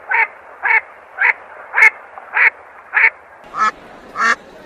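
Domestic ducks quacking in a steady series of short quacks, about two a second. The quacks turn fuller and louder near the end.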